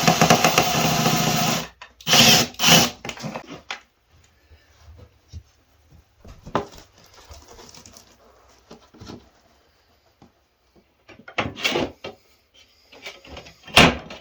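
Power drill running for a couple of seconds, then stopping, followed by scattered knocks and clunks of parts and tools being handled, with a sharp knock near the end.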